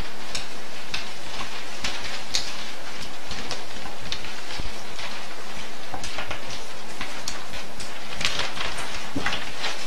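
Classroom room noise: a steady hiss with many small, irregular rustles and clicks from students handling their papers and books.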